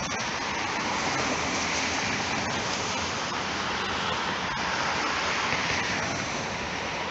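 Steady rushing noise of street traffic together with an approaching tram rolling along the rails, with a few faint clicks.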